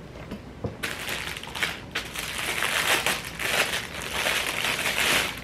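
Packaging crinkling and rustling while an inflatable travel pillow is unpacked from its box, starting about a second in and going on with many small crackles.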